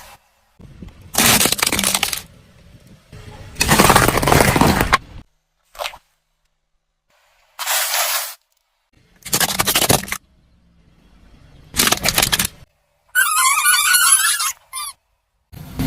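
A run of about seven short, separate bursts of cracking and crunching as toys are crushed under a car's tyres, each cut off abruptly. Near the end comes a warbling, wavering tone.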